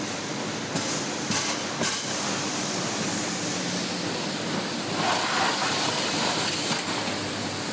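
Steady machinery din of a sheet-metal factory floor, with a faint hum and a few light clicks in the first two seconds.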